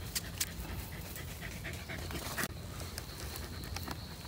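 Panting breath with scattered sharp crackles, like twigs and leaves underfoot, over a steady high insect drone.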